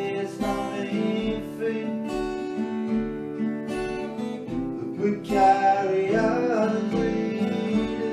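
Two acoustic guitars in an instrumental break: one strums chords in a steady rhythm while the other plays a lead solo over it.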